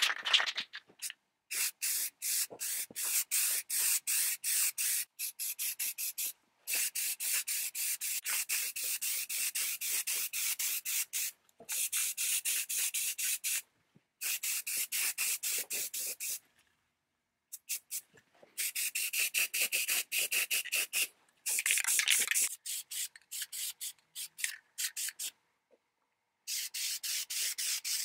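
Aerosol spray-paint can hissing as it coats metal parts, in runs of a few seconds with short pauses, each run broken into rapid pulses, with a faint whistle-like tone through the hiss.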